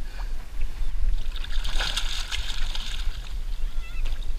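Water splashing and sloshing as a large common carp thrashes at the surface beside a float tube. The splashing is loudest about two seconds in, over a steady low rumble.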